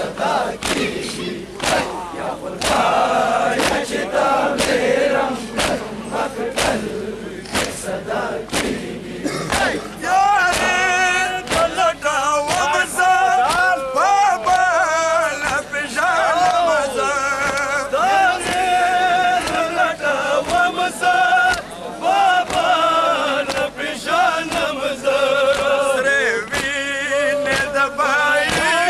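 Pashto matam: a crowd of men beating their chests in a regular rhythm while chanting. About ten seconds in, male voices take up a sung noha lament with a wavering pitch over the steady beats.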